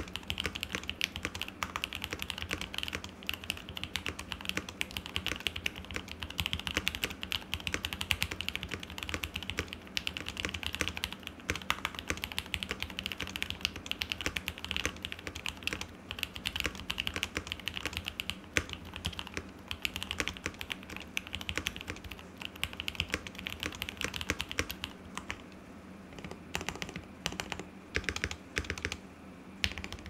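Fast, continuous typing on a KBD67 Lite R2 mechanical keyboard with JWK Black linear switches on a polycarbonate plate. About four seconds from the end the typing thins to scattered single key presses on lubed Gateron Milky Yellow linear switches.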